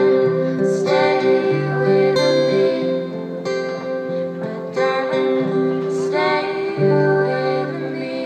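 Acoustic guitar strummed in a slow, even rhythm, a new chord about every second and a half, accompanying singing.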